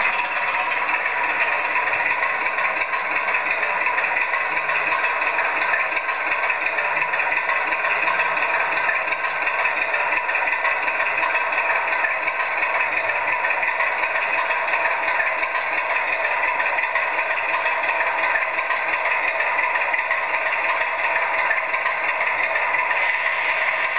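Diesel engine sound from the LokSound DCC sound decoder in a Bachmann OO gauge Class 25 model locomotive, played through the model's small speaker and running steadily, with a rattling tone.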